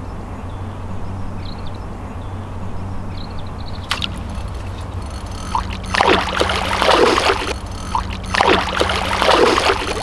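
Hooked common carp thrashing at the surface in the reedy margin, in two loud bursts of splashing in the second half. There is a sharp click a little before them, over a steady low hum.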